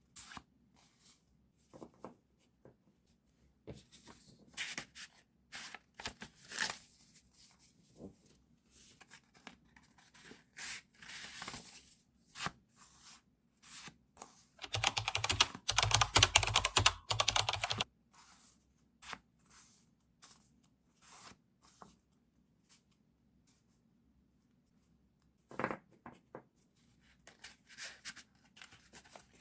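Paper and stationery being handled on a diary: scattered light rustles, taps and scrapes, with a loud tearing sound lasting about three seconds about halfway through.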